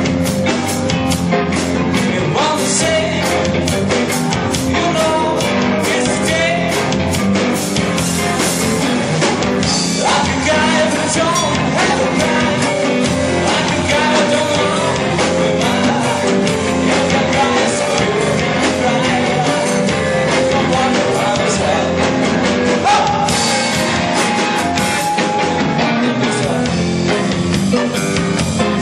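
Live rock band playing: electric guitar and drum kit with a male singer, the music steady and loud, moving into a new section about ten seconds in.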